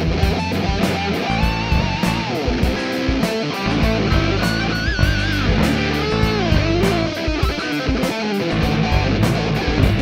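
Background rock music: an electric guitar lead with bending notes over a steady drum beat.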